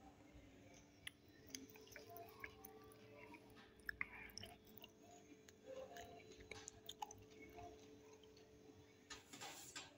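Faint soft squishing and light scattered clicks of a bare hand spreading margarine over a metal baking tray, over a faint steady hum.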